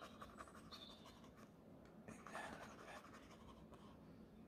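Faint scratching of a long-handled brush working oil paint onto canvas.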